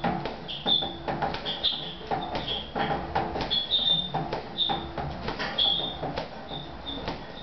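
Boxing gloves punching a hanging heavy bag: irregular thuds several times a second. Short high squeaks come from the bag's chain hanger as it swings.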